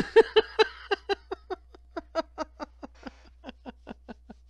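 A person laughing: a long run of quick, evenly spaced "ha" pulses, about four or five a second, that starts strong and trails off over about four seconds.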